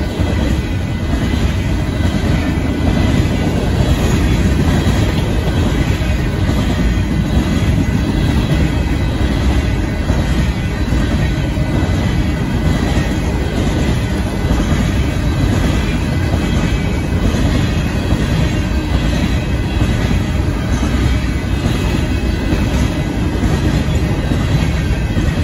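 Cars of a Union Pacific grain train rolling past at close range: a loud, steady rumble with the clickety-clack of steel wheels on the rails.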